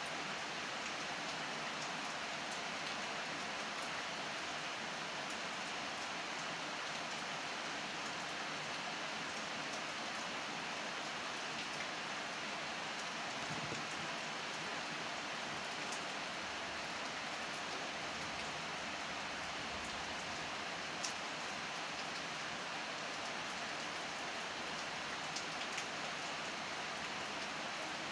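Steady rain falling, an even hiss with occasional sharper drop ticks.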